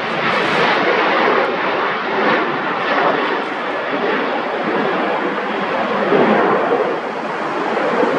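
Airliner engine noise, a loud, steady rush of sound.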